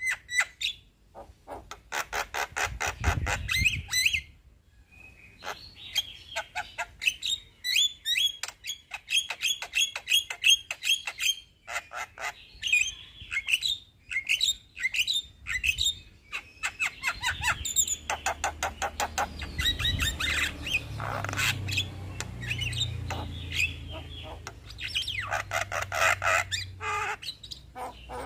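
Male Javan myna (jalak kebo) singing a long rolling song: rapid runs of sharp clicking and chattering notes, broken by a few harsher rasping stretches.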